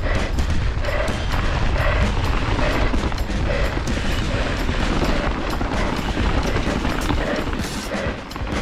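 Mountain bike clattering and rattling over a rocky trail, with many sharp knocks and a constant low rumble of riding noise on the camera microphone.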